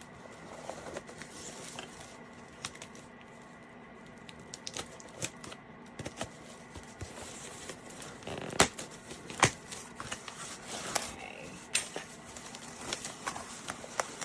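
A cardboard shipping box being opened by hand: tape and packing tearing, scraping and crinkling, with scattered sharp clicks and a few louder knocks in the second half.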